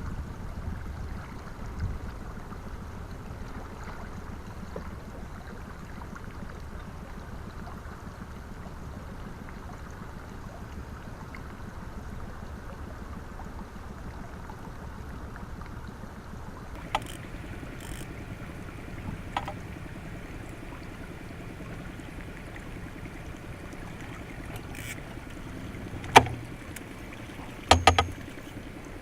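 Steady noise of a pontoon boat out in windy water, with a few sharp knocks scattered through it; the two loudest come near the end.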